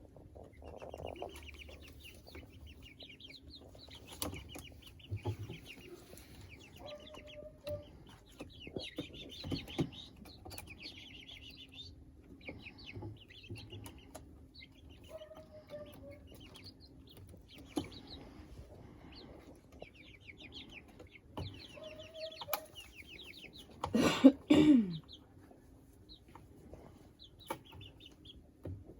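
Young chickens calling throughout: short rapid high-pitched trills of peeps, a few lower clucks, and scattered clicks, with one brief louder call that falls in pitch near the end.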